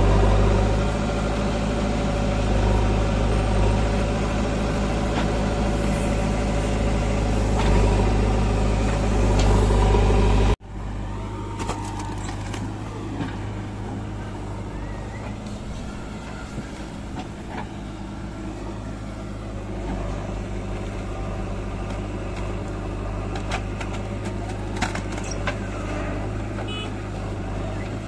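Diesel engine of a JCB 3DX backhoe loader running, loud and close at first. After a sudden cut about ten seconds in, it runs more quietly and steadily as the backhoe arm digs and dumps earth, with a few light knocks later on.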